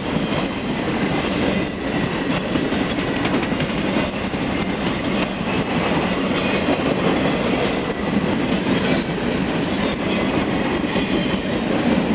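Freight train boxcars rolling past: a steady noise of steel wheels on the rails, with light clacking over the rail joints.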